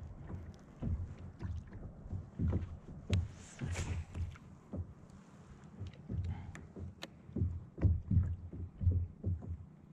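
Small waves knocking irregularly against a plastic kayak hull. About three and a half seconds in, a brief swish as the angler makes a cast with a baitcasting rod and reel.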